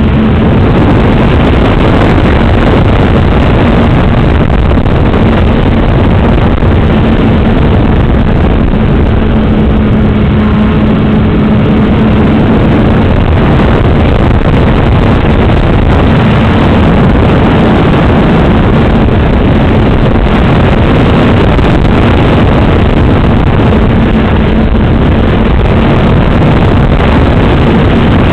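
Motor and propeller of an FPV model airplane heard from its onboard camera in flight: a loud, steady, distorted rush of prop noise and wind over a steady hum, which weakens for a while in the middle and comes back near the end.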